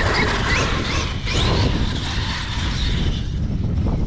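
Traxxas X-Maxx electric RC monster truck's brushless motor and drivetrain whining, the pitch rising several times in the first second or so as the throttle is blipped, over a steady low rumble.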